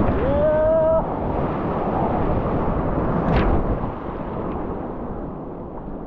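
Loud low roar of heavy typhoon surf and wind buffeting the microphone, easing off in the last couple of seconds. A person's drawn-out high shout rises and holds in the first second.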